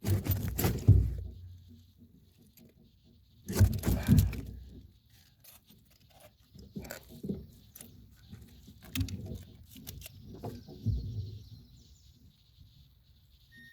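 Freshly caught bowfin making low grunting sounds in about five irregular bursts, mixed with knocks from the fish thrashing as it is held.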